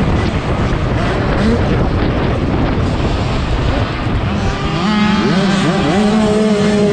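Yamaha dirt bike engines racing, the onboard engine running under heavy wind noise on the microphone. About four and a half seconds in, clearer engine notes climb and drop in pitch as the bikes rev and shift through gears.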